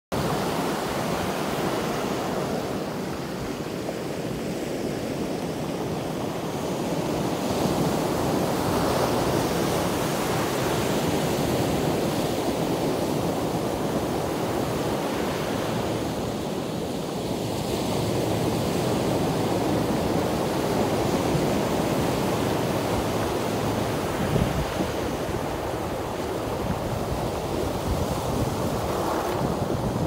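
Ocean surf breaking and washing up over a shore of coral rubble and rocks. It is a continuous rush that swells each time a wave comes in.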